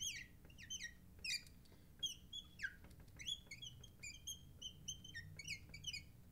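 Marker squeaking on a glass lightboard while writing: many short, high squeaks that slide in pitch, several a second, one for each stroke.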